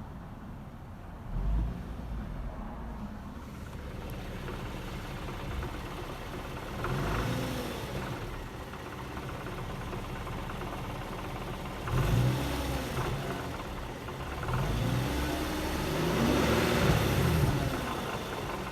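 2008 Infiniti G37's V6 engine idling and revved several times, the pitch rising and falling with each blip, with a rattle that is louder as the revs come back down. The owner suspects the catalytic converters.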